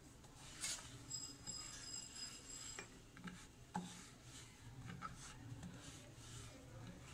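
Faint rubbing of a wooden rolling pin rolling out paratha dough on a floured board, with a couple of light knocks of the pin against the board.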